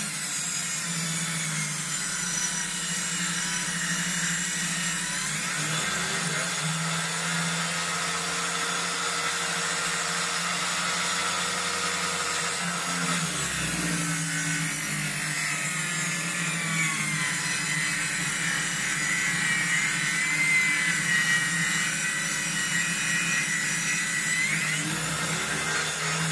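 Power saw running steadily as it rips a thin birch log lengthwise down the middle, its pitch dipping and climbing back a few times as the cut loads and eases.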